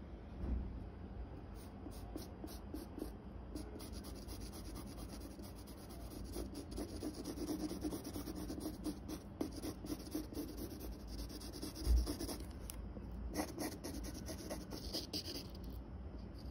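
Graphite pencil scratching on paper in many short, quick hatching strokes as fur is shaded, with a soft low thump about twelve seconds in.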